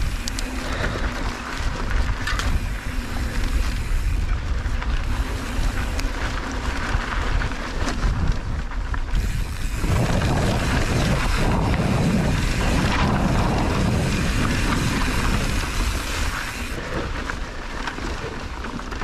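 Mountain bike rolling fast down a dry, rocky dirt trail: tyre roar and scattered clicks from the bike over the ground, mixed with wind buffeting the microphone. The rumble grows louder from about halfway through, then eases near the end.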